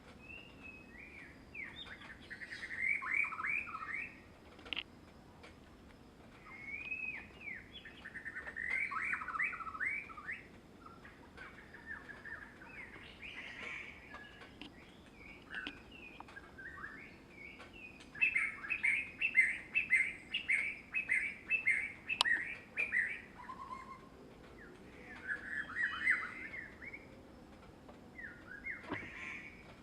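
Birds singing, in bursts of quick repeated chirps and trills with short pauses between phrases. The loudest is a long fast run of chirps, about four a second, in the middle of the stretch.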